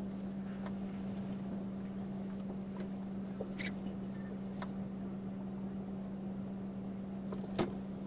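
Steady low hum inside a stationary car, with a few faint clicks scattered through it, the sharpest one near the end.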